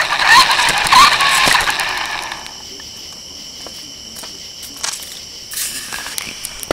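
Radio-controlled car running over pavement: a motor whine wavering in pitch over the noise of its tyres, which stops about two and a half seconds in. After that, crickets chirp steadily, with a few faint clicks.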